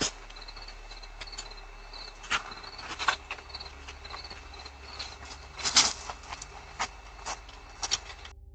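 A cricket chirping steadily about twice a second, with a low electrical hum, heard through a doorbell camera's microphone, broken by a dozen or so sharp clicks and knocks, the loudest a little over two, three and nearly six seconds in. The sound cuts off abruptly just before the end.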